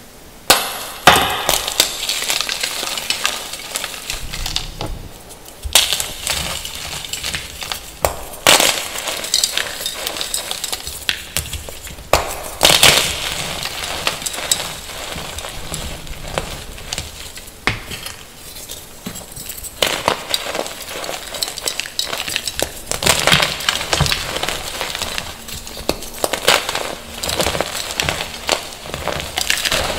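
Blocks of gym chalk crushed in bare hands, crunching and crumbling into powder with a gritty crackle. It comes in repeated squeezes a few seconds apart, the loudest about a second in.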